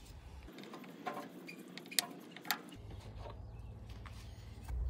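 A few faint clicks and taps from gloved hands handling the battery's disconnected cable clamps and terminal hardware, the sharpest about two seconds in.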